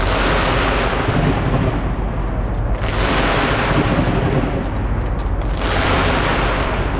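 Fireworks display bursting in a continuous barrage of booms and crackling. It swells in three waves, near the start, about three seconds in, and just before the end.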